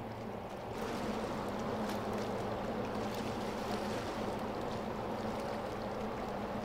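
Passing container ship: a steady low engine hum with the rush of water along the hull, which gets louder about a second in.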